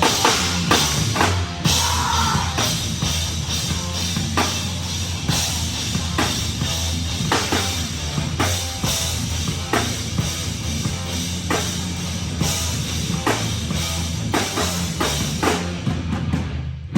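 Heavy rock band playing live, with a loud drum kit keeping a steady beat over bass and distorted guitar.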